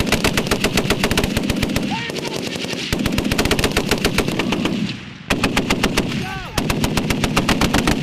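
M2 .50-calibre heavy machine guns firing long automatic bursts, the shots coming in rapid succession, with a brief break about five seconds in.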